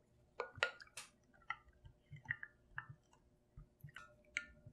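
Wooden stirring stick clinking and knocking against the side of a glass measuring jug while stirring strawberry milk: about a dozen irregular light clicks, some with a short ringing tone.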